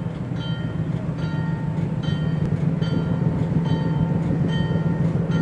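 Diesel locomotive running with a steady low engine drone that grows a little louder about two seconds in. Over it the locomotive bell rings steadily, a strike a little more than once a second.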